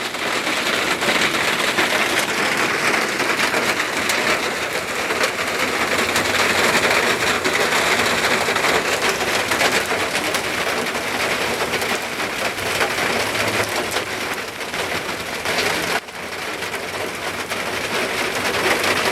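Heavy rain pouring down: a dense, steady hiss of countless drops striking surfaces. It dips suddenly for a moment about sixteen seconds in.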